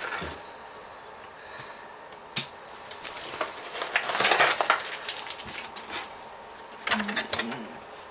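Plastic blister packaging of a toy being handled and cut open: scattered clicks and taps, with a louder crinkling stretch about four seconds in.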